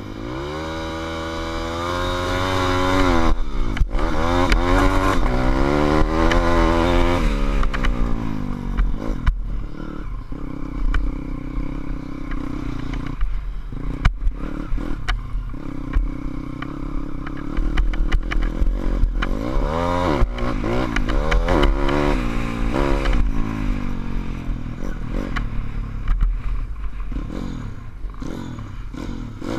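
SSR150 pit bike's single-cylinder four-stroke engine under way, revving up and falling back repeatedly as the rider accelerates and eases off, hardest in the first seven seconds and again around twenty seconds in, then dropping toward idle near the end. Wind rumbles on the helmet-mounted microphone and the bike rattles over bumps.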